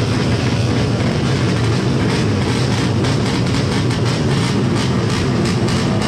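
Yamaha NMAX drag-racing scooters running at full throttle down the strip, a loud steady drone.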